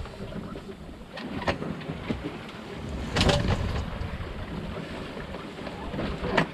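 Wind and water rushing past a sailboat under sail, with a few short sharp sounds, the loudest about three seconds in.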